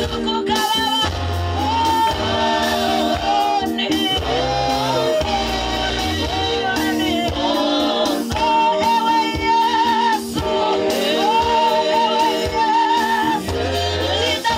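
A woman leads a gospel song through a microphone, with others singing along, over music with steady held chords and a low bass.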